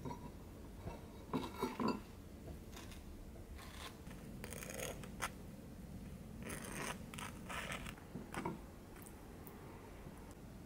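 A table knife scraping peanut butter out of a jar and spreading it, then jam, across crisp toast. The scratchy scrapes come in a few separate spells, with a quick cluster of knocks and scrapes of the knife in the jar early on.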